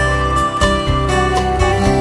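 Background music: an instrumental piece led by plucked and strummed acoustic guitar.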